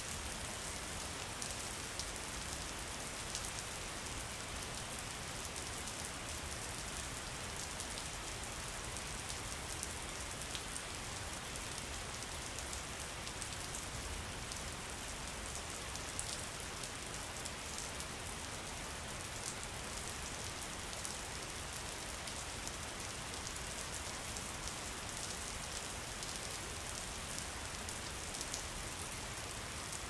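Steady rain: an even hiss dotted with many small, sharp drop ticks.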